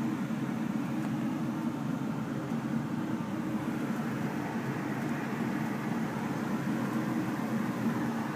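Consolidated Industries gas furnace running: a steady low rumble with a faint hum, from the burners firing and the fan running.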